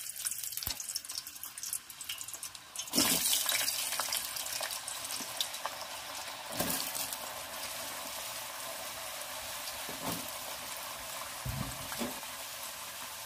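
Raw sliced potatoes deep-frying in hot oil, a steady hissing sizzle that gets louder about three seconds in as more potato goes into the oil. A few light knocks come through.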